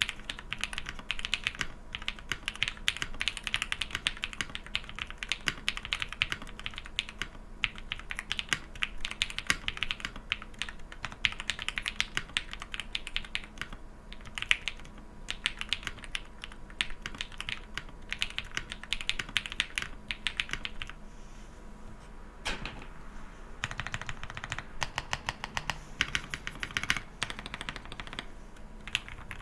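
Typing on a Qwertykeys QK65 custom mechanical keyboard with KTT Kang switches, PBT keycaps and an aluminium plate: a fast, continuous run of keystroke clacks. About two-thirds of the way through, it pauses for a couple of seconds with a single keystroke, then resumes.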